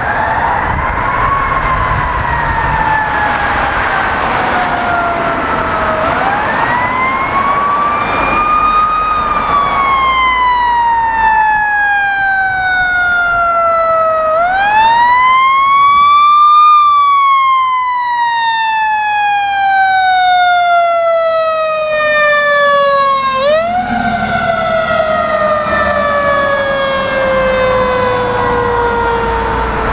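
Fire engine siren wailing as the truck responds: its pitch climbs over a second or three and then falls slowly for several seconds, winding up again four times. It is loudest about halfway through as the engine passes.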